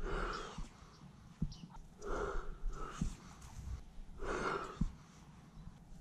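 Mouth-blown duck call sounding four short, breathy quacks spread a second or two apart, used to call passing ducks in. A few faint clicks between them.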